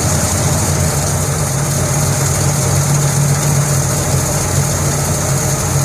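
1967 Cadillac Eldorado's original 429 cubic inch V8 idling steadily with the hood open.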